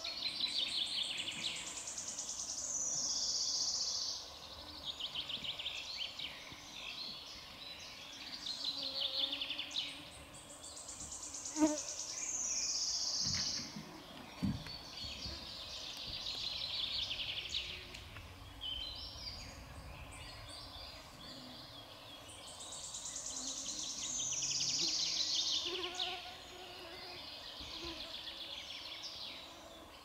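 A songbird singing: repeated high, trilled phrases a couple of seconds long, each ending in a falling sweep, with pauses of several seconds between them. A short sharp sound stands out near the middle.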